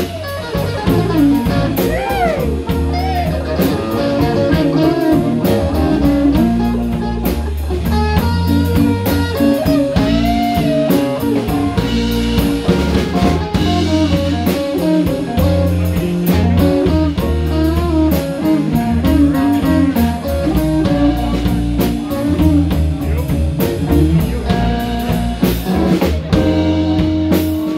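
Live blues band playing an instrumental passage: electric guitars, electric bass and drum kit, with a harmonica, and notes bent up and down in places.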